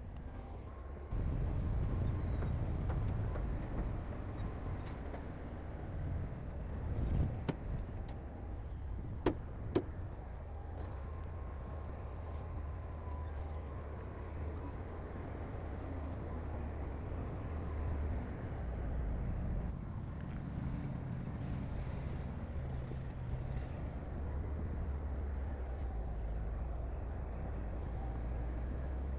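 Diesel engine of heavy earthmoving machinery running steadily with a low rumble, which gets louder about a second in. There are two sharp knocks about ten seconds in.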